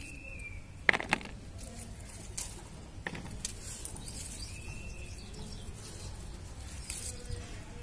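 Tomato plants rustling as ripe tomatoes are picked off by hand, with sharp clicks twice about a second in and once near three seconds.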